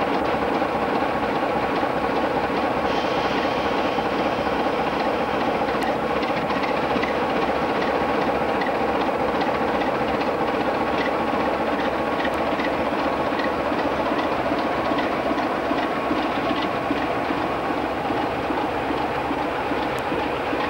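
British Rail Class 52 'Western' diesel-hydraulic locomotive D1013 working its twin Maybach engines as it moves past, with the wheels giving a regular light clicking over the rail joints through the middle.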